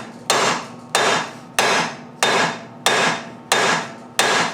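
Hammer blows on the old lower ball joint in the 350Z's lower control arm: seven sharp, evenly paced strikes, about one and a half a second, each ringing briefly, driving at a seized ball joint that does not budge.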